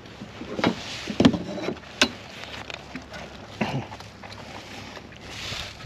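Knocks and thumps against a plastic fishing kayak, with rustling, as a caught tautog and the landing net are handled aboard and the fish is laid out on a measuring ruler. The loudest thump comes about a second in, followed by a sharp click about two seconds in.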